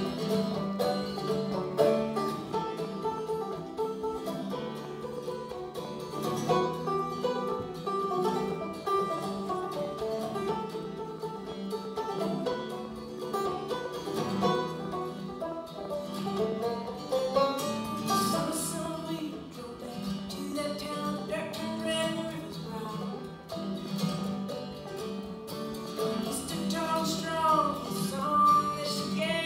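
Live acoustic guitar and banjo playing a folk tune together, picked and strummed at a steady pace.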